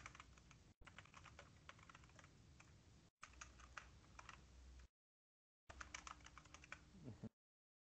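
Faint computer keyboard typing: quick runs of keystrokes, a short pause about five seconds in, then one more short run.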